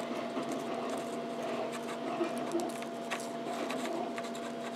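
Steady mechanical hum of a 3D printer running, with two constant tones, and faint scratches and small ticks from a brush dabbing liquid latex onto a printed rubber disc.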